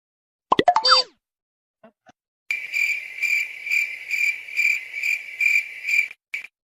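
Cricket chirping sound effect: a regular run of chirps at about two and a half a second, starting a little after two seconds in and stopping about a second before the end. Before it comes a brief sound effect with quick sweeps in pitch.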